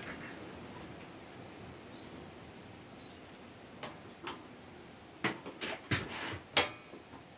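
Circlip pliers fitting a circlip into its groove on a lathe headstock spindle: a couple of light metallic clicks about four seconds in, then a quicker run of clicks over the next second and a half, the last the loudest.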